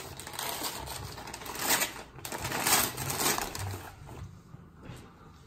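Gift wrapping paper rustling and tearing as a present is unwrapped, in several short crinkly bursts that die down near the end.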